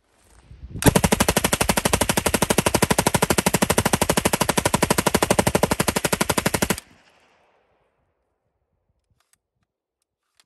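M16 firing 5.56 mm green-tip rounds on full auto: one continuous burst of about six seconds at roughly a dozen shots a second, emptying a drum magazine without a stoppage, then cutting off suddenly.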